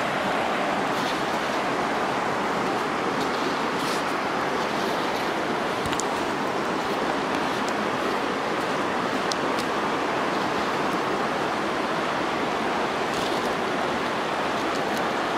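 Steady rush of river water running over shallow rocky rapids, with a few faint ticks.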